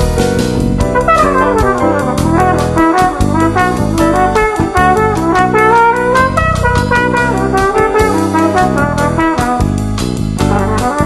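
Jazz trio playing: a flugelhorn melody over piano from a Nord Stage 2 keyboard and a five-string electric bass, with a quick falling run about a second in.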